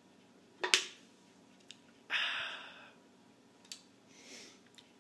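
Sounds of shotgunning a beer can: a sharp knock under a second in, then a loud, fading rush of air or fizz about a second long, a small click and a softer breath near the end.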